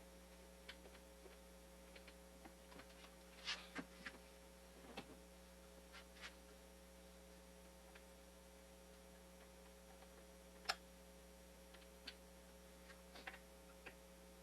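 Light clicks and knocks of hand tools and screws being handled, about a dozen scattered sharp ticks, the loudest about eleven seconds in, over a steady low electrical hum.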